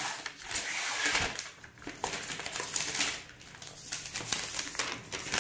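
Rustling and crinkling of plastic packaging, with a few light clicks and knocks, as a laptop is unwrapped and handled.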